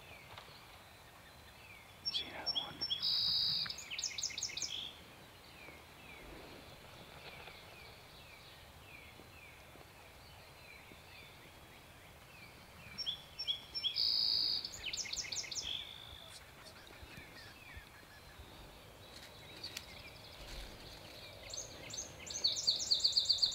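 Birds calling: three loud bursts of rapid, high-pitched notes about ten seconds apart, each lasting two to three seconds, over a faint, steady run of repeated chirps.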